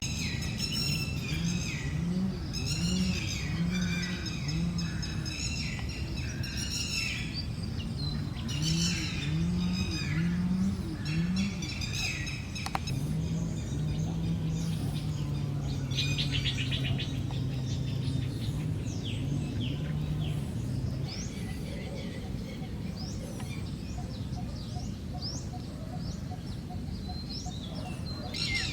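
Outdoor birdsong: several birds chirping and singing. A deep, low call is repeated in short series of rising notes, in a couple of bursts early on and then a longer run through the middle.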